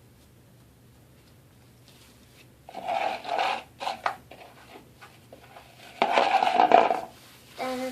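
Homemade slime being kneaded and worked by hand as activator is mixed in, making two bursts of sticky rubbing and scraping noise, about three and six seconds in.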